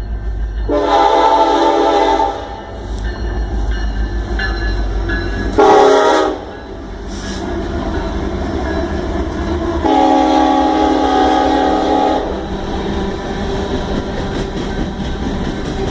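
Union Pacific freight locomotive's horn sounding three blasts, long, short, then long, over the low, steady rumble of the passing train.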